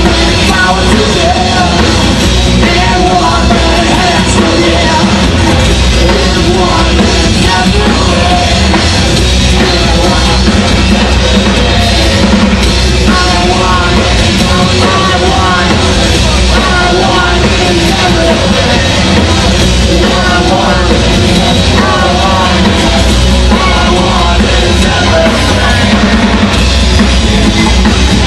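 Live rock band playing loud and steady: drums and electric guitar, with a man singing into a microphone.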